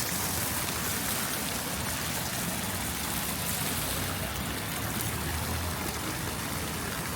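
Steady rush of water, an even hiss with no pauses or changes.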